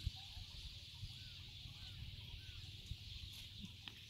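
Faint scattered short bird calls over a steady high hiss and an uneven low rumble, with one sharp knock right at the start.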